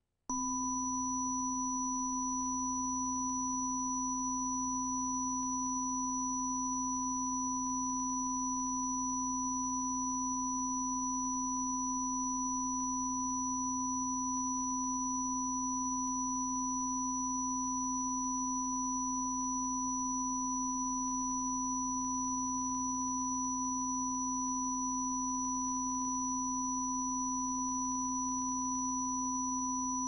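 Videotape quality-control test signal: three steady pure tones, one low, one middle and one high, sounding together without change. They start abruptly just after the beginning. It is a deliberate check signal, not a fault.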